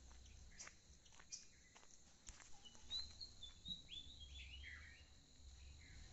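Faint birdsong: a short run of high chirps and whistles about three to five seconds in, over soft footsteps on a dirt lane.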